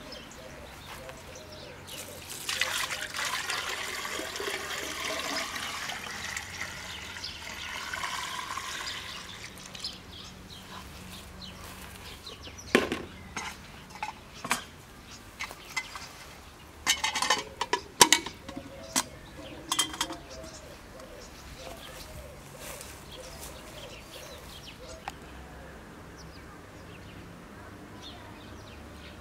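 Water poured from a bucket into a metal samovar for about seven seconds, the pitch of the pour rising as the samovar fills. Then a run of sharp metallic clinks and knocks.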